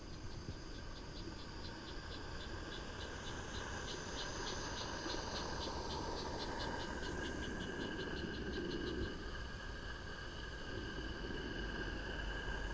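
Roundhouse Billy live-steam garden-railway locomotive running past with its train of wagons: a rapid, even ticking over a steady hiss, with a low rumble of wheels on the track growing as the wagons go by.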